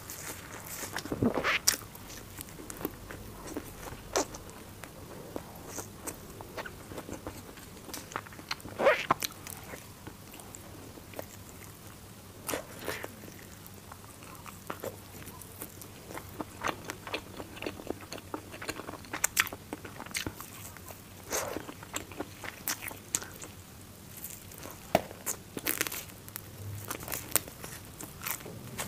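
Close-up biting and chewing of fried skewers: irregular crunches, with a louder bite every few seconds. The coating is fried hard rather than crisp.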